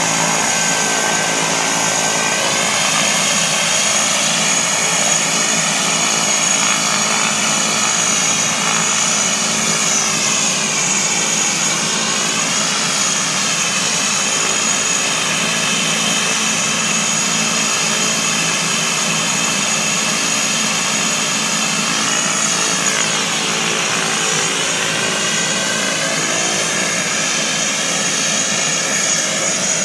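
A de Havilland Canada DHC-6 Twin Otter's two PT6A turboprop engines running on the ground. It is a steady loud turbine whine over a lower propeller drone, and the tone sweeps slowly up and down twice.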